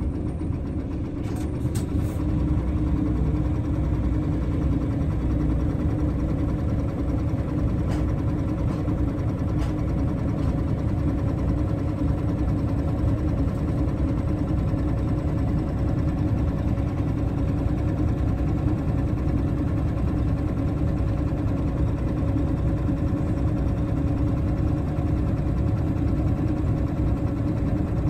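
Nissan Diesel Space Runner RA city bus's diesel engine idling steadily, heard from inside the bus, with a few faint clicks.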